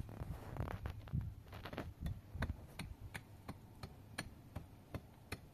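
Concrete block being tapped down into its bed of mud mortar with a hand tool: a scraping in the first second or so, then a steady run of light, sharp clicks about three a second.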